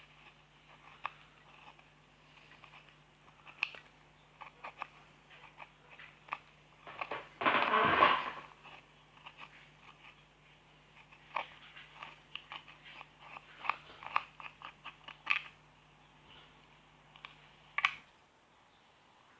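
Slime being squeezed and poked by hand, giving scattered sharp clicks and small pops, with one louder squelch lasting about a second, roughly 7 seconds in. A faint steady hum runs underneath and stops near the end.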